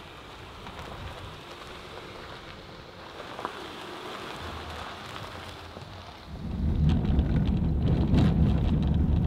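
Vehicle driving on a gravel road, heard from inside the cab: a steady hiss at first, then about six seconds in a much louder low road rumble with scattered knocks and rattles from the gravel.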